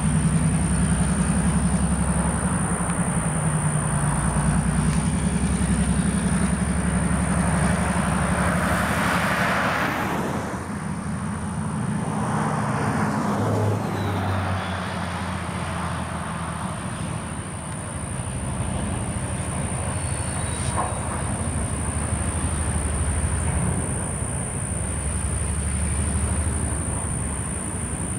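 Diesel locomotive engine drone as it pulls a train of covered hopper cars past, with the cars rolling along the rails. A brief rush of noise comes about nine seconds in, and the sound is somewhat quieter after that.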